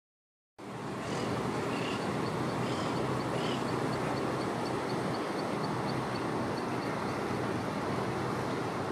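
Steady rumble of a river pushboat's engine driving a barge convoy under way. It starts suddenly about half a second in, and a faint high chirping repeats about four times a second through the middle.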